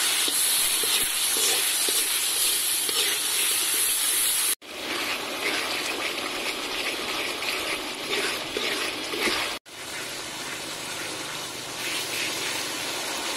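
Sugary chili-tomato sauce sizzling and bubbling in oil in a hot wok as it is stirred and cooks down to a thick glaze. The sound breaks off for an instant twice, and it is louder and brighter before the first break.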